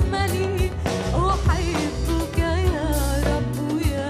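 A woman singing an Arabic Christian hymn, the voice wavering with vibrato over a band backing of drum beats and a steady bass.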